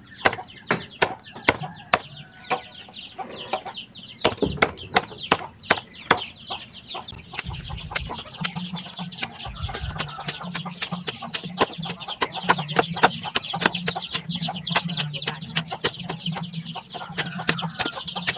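Machete chopping a banana-tree corm in an enamel basin: rapid, steady chops, about three or four a second. Young fowl peep constantly over the chopping, in short falling calls.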